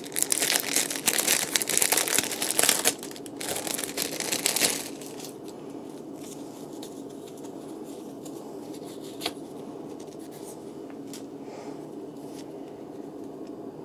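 Crinkling and rustling as the action figure's small jacket is handled, loud for about the first five seconds, then quieter with a few faint clicks.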